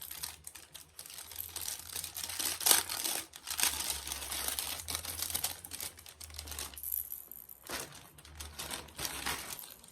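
Packaging crinkling and rustling as a gift is handled and unwrapped, with irregular sharp crackles, loudest about three seconds in.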